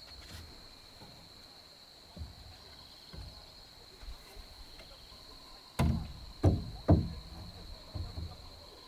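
Three heavy knocks in quick succession about six seconds in, with softer thumps before and after, over a steady high-pitched insect drone.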